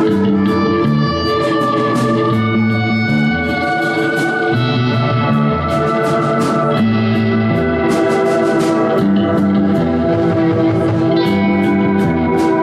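Live electric guitar played through an amplifier, holding and changing notes, with a band's drums and cymbals beating along.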